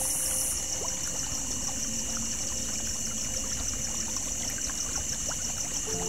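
Creek water flowing and trickling steadily, with a high, fast-pulsing trill running continuously above it.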